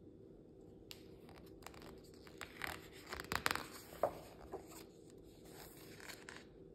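A paper page of a picture book being turned by hand: quiet rustling and crinkling with a few soft ticks, loudest about halfway through.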